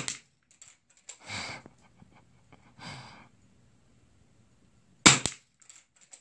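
.22 LR rifle shots: a sharp crack right as it opens and another about five seconds in, the second one followed a fifth of a second later by a shorter crack and a few small clicks. Between the shots comes the shooter's breathing.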